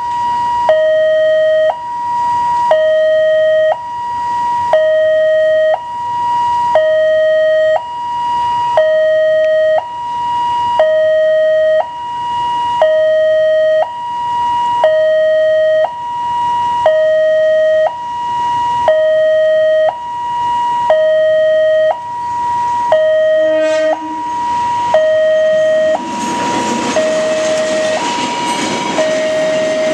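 Railway level-crossing alarm sounding its electronic two-tone signal, a higher note and a lower note taking turns about once a second. About 26 seconds in, a diesel-hauled freight train of ballast hopper wagons reaches the crossing, and its rumble and wheel noise rise under the alarm.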